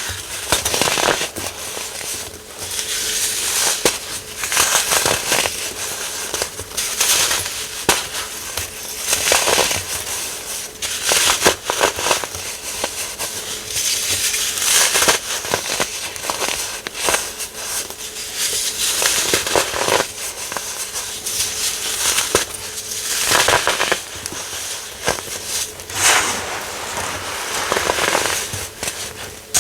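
Baking soda being crushed and crumbled, giving dense crackling crunches that come in repeated bursts every second or two.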